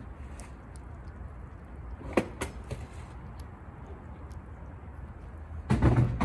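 A cat with stomatitis eating canned tuna: a few wet licking and smacking clicks about two seconds in, and a louder cluster of smacks near the end as it licks its lips, over a steady low rumble.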